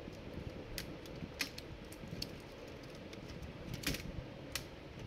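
Sharp plastic clicks and taps from a laptop being taken apart as its keyboard and touchpad are unclipped, about five in all with the loudest near four seconds in, over low handling rustle.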